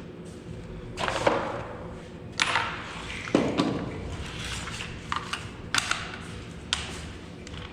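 Sharp metallic knocks and clinks, about six of them spread out and some ringing briefly, from tools and metal parts of a window-type air conditioner being worked on during a fan motor replacement. A steady low hum runs underneath.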